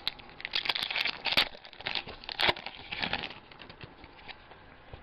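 Foil wrapper of a trading card pack crinkling and tearing as it is opened by hand, a run of short crackles that stops after about three seconds.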